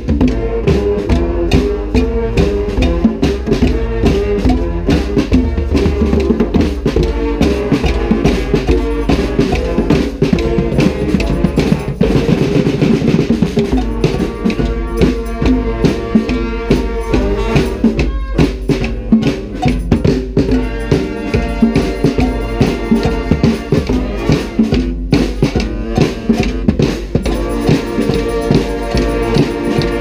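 Street brass band playing, with a snare and bass drum beating loud and close and horns playing the tune over them.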